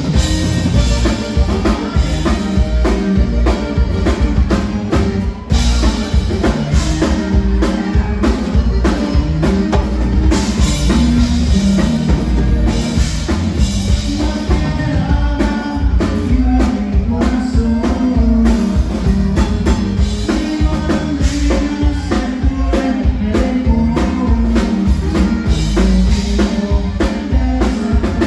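Live conjunto band playing: button accordion, bajo sexto, electric bass and drum kit, with a steady driving beat.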